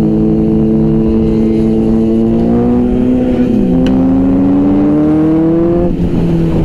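Superbike engine running under way, its pitch rising steadily as it speeds up, then dropping abruptly about six seconds in.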